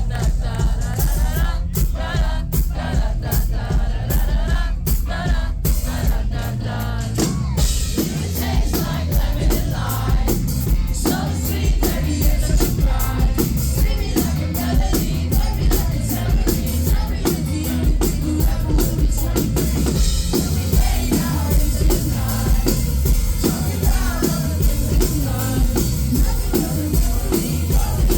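Live pop-rock band playing, with a steady drum beat, bass and a singing voice.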